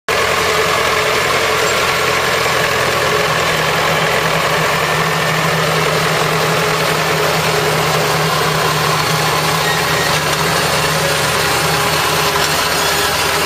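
Farm tractor engine running steadily while pulling a cassava stem-cutting planter.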